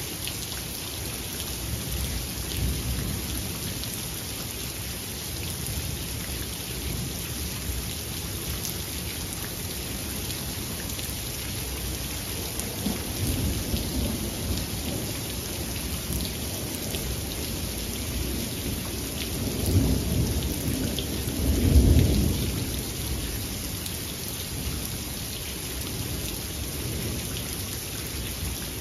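Steady rain falling, with thunder rumbling in slow low rolls: a first roll a little before the middle and a louder one about two-thirds of the way in, peaking soon after in the loudest clap of thunder.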